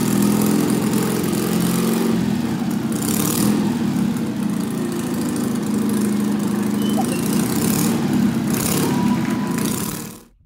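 Citroën 2CV air-cooled flat-twin engine on a motorbike built from the car, running steadily at idle.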